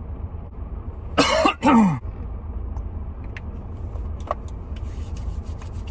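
Two short, loud wordless vocal sounds with a falling pitch, about a second in, over the steady low rumble of a car cabin. A few faint clicks follow near the end.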